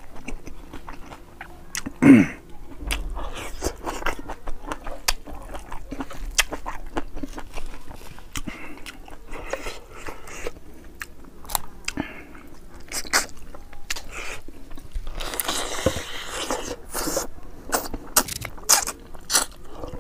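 Close-up eating sounds of a man eating boiled fish head and rice by hand: chewing, lip smacking and sucking at the fish, with many sharp little clicks. One louder sound with a falling pitch comes about two seconds in, and there is a busier stretch of noisy chewing near the end.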